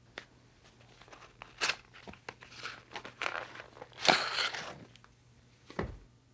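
Hands opening a cigarette pack: the wrapper and foil crinkling and tearing in short, irregular crackles, loudest a little past four seconds in, with a dull thump near the end.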